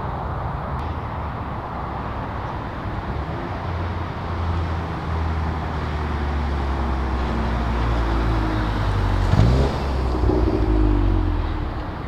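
Volkswagen Golf Mk7 GTI Performance with its mid resonator deleted driving past: the turbocharged 2.0-litre four-cylinder's exhaust note grows louder as the car approaches and drops sharply in pitch as it passes about nine seconds in, then fades as it pulls away near the end.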